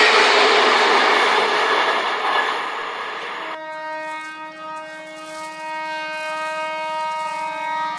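Loud rushing noise of a train running, which cuts off abruptly about three and a half seconds in. A steady train horn then sounds, one held note.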